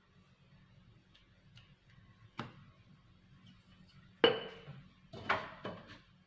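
Stainless steel tumbler, used as a dough cutter, clinking on hard surfaces: a faint tap, then one sharp ringing knock about four seconds in, and a quick run of three or four clinks near the end as it is dipped into a ceramic bowl of flour.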